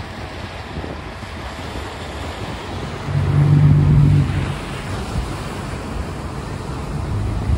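Outboard engines of a catamaran fishing boat running at the stern, churning the water as the boat is driven off its launching trolley. About three seconds in the engine note steps up loud and steady for about a second, then drops back, over a constant rumble of water and wind on the microphone.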